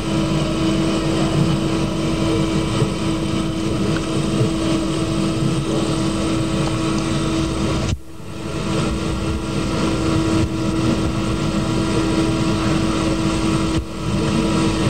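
Steady rushing background noise with a constant low hum, dipping briefly about eight seconds in and again near the end.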